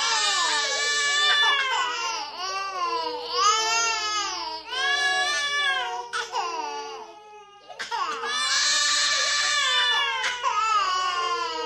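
Several infants crying and wailing at once, their cries overlapping in long, bending wails. The crying eases briefly about seven seconds in, then swells loud again about a second later.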